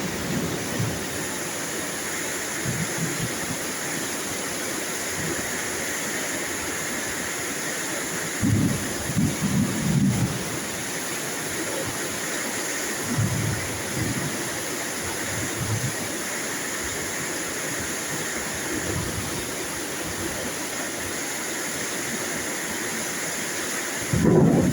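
Steady heavy rain with low rolls of thunder coming and going, the strongest about eight to ten seconds in.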